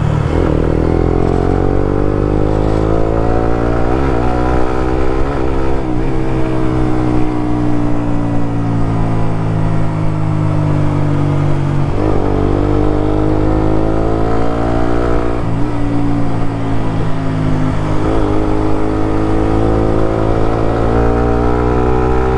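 Suzuki GSX-R150's single-cylinder engine running through a Prospeed Black CNC full-system aftermarket exhaust while being ridden. The engine note climbs slowly in pitch and breaks sharply several times as the throttle changes, with a mellow tone.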